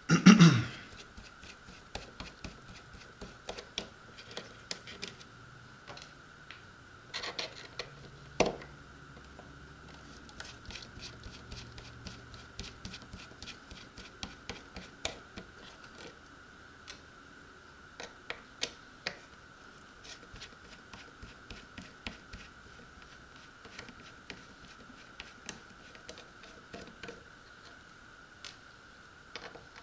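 Small Torx screwdriver working screws out of a metal skid plate on a plastic boat hull: many faint clicks and scrapes, with a louder knock right at the start and another about eight seconds in. A faint steady high whine runs underneath.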